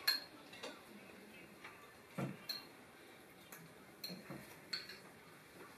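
Faint, scattered clinks of a metal spoon and fork against porcelain bowls while eating, about half a dozen light taps with quiet gaps between.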